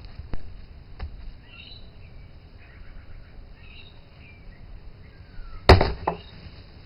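A sledgehammer strikes a dead 500 GB hard drive lying on a wooden log: one heavy blow late on, then a smaller knock right after. Faint bird chirps sound in the background.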